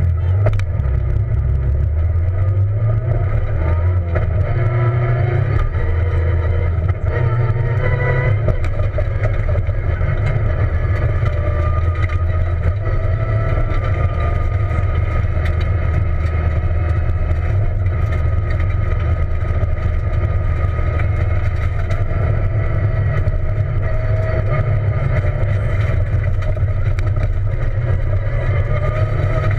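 Peugeot 207 rally car's engine heard from inside the cabin, pulling away from the stage start and revving up through several gear changes in the first eight seconds or so, then running hard at fairly steady revs on a dirt road.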